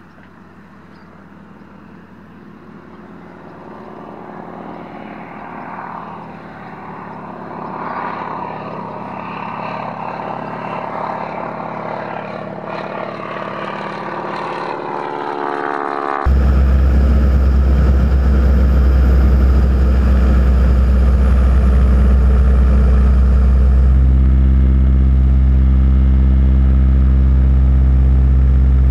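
Model aircraft engine growing steadily louder as it approaches, with a shifting pitch, over about sixteen seconds. Then an abrupt switch to a much louder, steady low engine drone, whose pitch steps to a new setting about eight seconds later.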